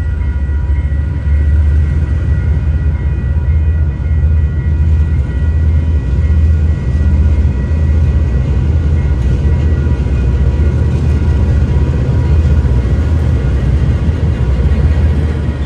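Two KiwiRail diesel-electric locomotives hauling a passenger train across a level crossing: a loud, steady low engine rumble with a throbbing pulse, and several steady high tones above it.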